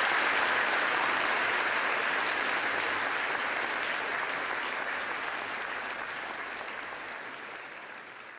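Audience applauding after a speech, a steady clapping that slowly fades away near the end.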